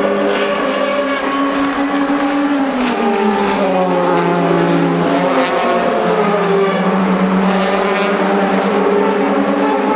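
DTM touring cars' V8 racing engines running through a corner, several engine notes overlapping, with one dropping in pitch from about three to five seconds in.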